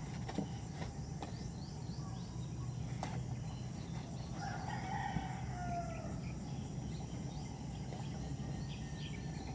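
A rooster crows once about halfway through, its call ending in a falling glide, over a steady low background hum.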